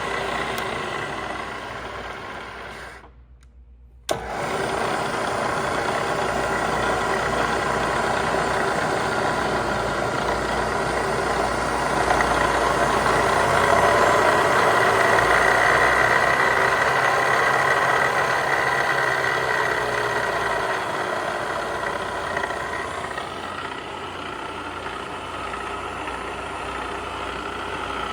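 Bridgeport milling machine running with a steady mechanical hum and whine. About three seconds in the sound drops out, then comes back with a sharp click.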